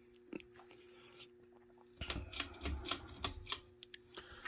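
Faint steady electrical hum from a Hunter Heirloom ceiling fan running on low speed together with the room's fluorescent lights. From about two seconds in, irregular small clicks and light knocks come in over the hum.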